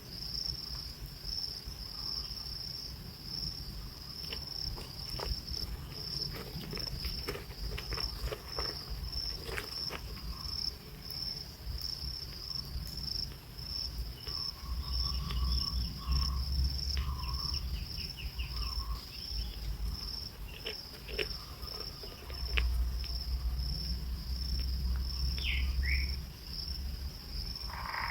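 Steady high-pitched insect trill, a continuous fast pulsing chorus, with occasional faint short chirps and clicks and stretches of low rumble.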